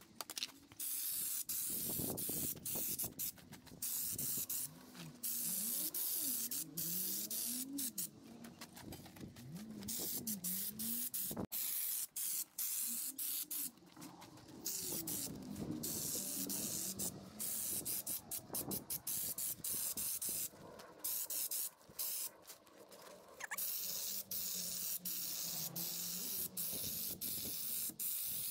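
Compressed-air spray gun applying Raptor textured coating to a locker door. The air hisses in repeated bursts as the trigger is pulled and released between passes.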